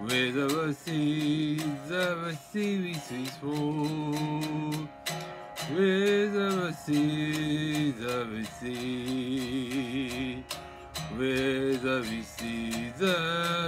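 A man singing long, wavering notes in phrases over a strummed electric guitar.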